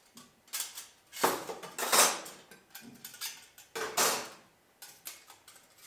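The flat stainless-steel plates of a folding wood-burning camp stove clinking and scraping against each other and the table as the stove is taken apart. There are three louder metallic clatters, about one, two and four seconds in.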